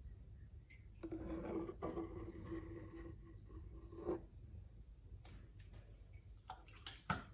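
Handheld aquarium waste-siphon pipette sucking up dirty water from a fry basin: a faint low, steady hum with water noise for about three seconds from about a second in, then a few light clicks and knocks near the end.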